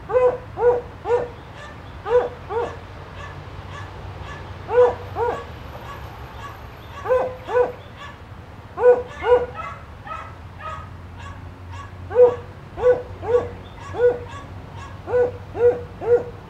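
A dog barking, short pitched barks in runs of two to four, a new run every couple of seconds, about eighteen barks in all.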